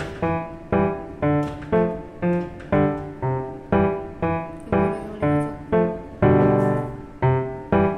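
Background piano music: a steady run of struck notes about two a second, each fading before the next, with one longer held note about six seconds in.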